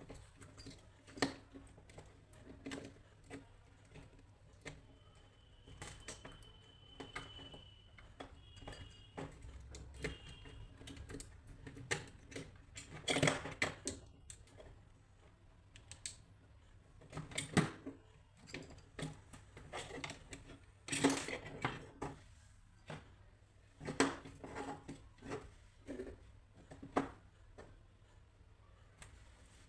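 Irregular light clicks and taps of small tools and parts being handled on a work surface, during a headphone repair. A few short, thin, high tones sound near the middle.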